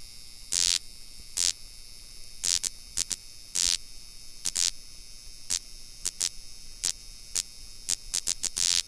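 Steady high electronic static hiss broken by irregular bursts of louder crackling noise, about a dozen in all, with no steady rhythm.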